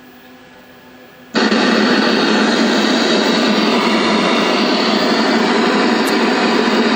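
Loud, steady hiss of static from a vintage tube television's speaker. It cuts in abruptly over a faint hum about a second in, once the open resistor in the audio output stage is bridged with a resistor decade box: the sound section is working again.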